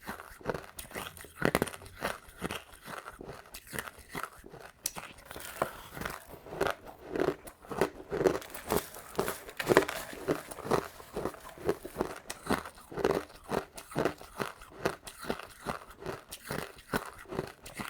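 Crushed ice being bitten and chewed close to the microphone: rapid, irregular crunches, several a second.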